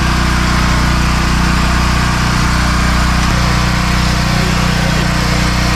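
Steady drone of a small engine-driven generator running, powering the boat's lights.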